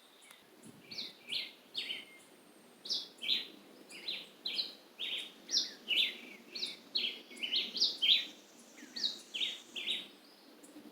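Birds chirping: a steady run of short, high, downward-sweeping chirps, one to three a second, over a faint steady background hum.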